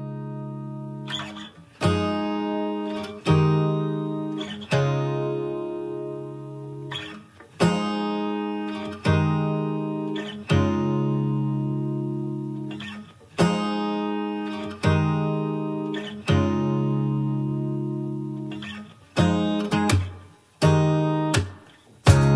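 Acoustic guitar music: slow strummed chords, each left to ring out. They come in groups of three about a second and a half apart, with short pauses between the groups. Just at the end a busier, louder passage starts.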